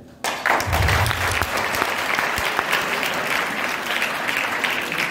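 Audience of schoolchildren clapping, starting suddenly and going on steadily as a dense patter of claps, with a brief low rumble about a second in.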